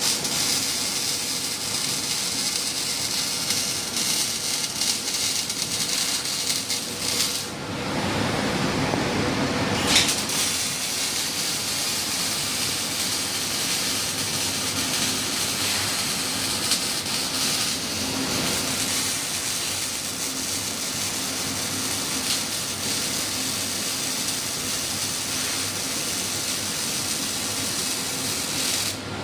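Robotic arc welding on rectangular steel tube: a steady crackling hiss of the welding arc. About eight seconds in the hiss breaks off for a couple of seconds under a lower rushing sound, ending in a sharp click, then the arc hiss resumes.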